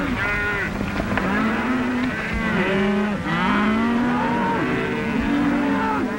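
A herd of cattle bawling: many overlapping moos rising and falling, one after another, over a steady hiss.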